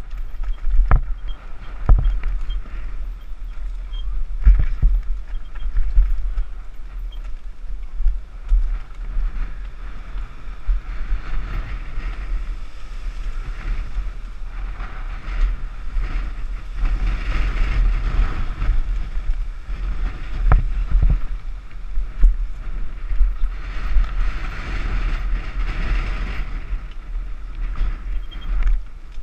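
Mountain bike descending a rough dirt trail at speed, heard from a camera on the rider: wind buffeting the microphone, with the bike rattling and knocking over bumps. The rushing grows louder for a stretch in the middle and again near the end.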